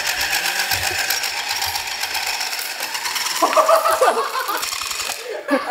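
Cordless Dremel rotary tool driving a large helicopter rotor through a 3D-printed reduction gearbox, running fast with a rapid, even chopping whir. A person's voice exclaims briefly just past the middle.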